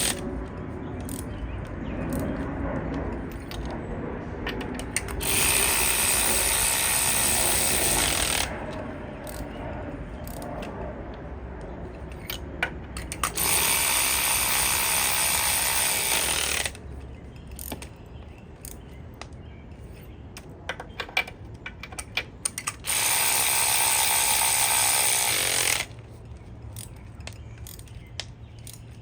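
Spark plugs being run in and tightened with a ratchet. A steady mechanical whir comes in three bursts of about three seconds each, with quieter ratchet clicks and tool handling between them.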